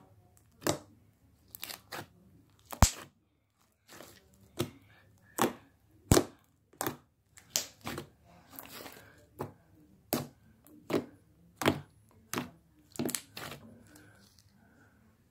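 Day-old slime being squeezed and pressed by hand, giving a string of sharp pops and clicks at irregular spacing, about one or two a second.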